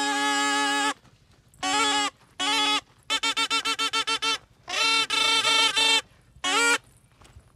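Snake charmer's pungi (been), a gourd reed pipe, playing a nasal, buzzy melody over a steady drone. The first note is held until about a second in, then the tune comes in short phrases with pauses, including a fast run of repeated notes in the middle.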